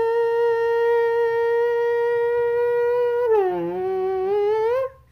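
A person's voice imitating a car engine: one high note held steady, which drops in pitch about three seconds in, climbs back up, and cuts off near the end.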